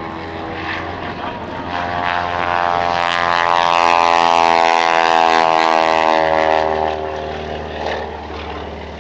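Modified Grumman Ag Cat biplane's engine and propeller making a pass. The engine note grows louder to a peak in the middle and then fades away.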